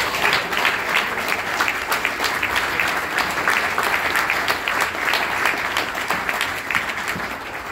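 Audience applauding a just-announced award winner: many hands clapping together, tapering off near the end.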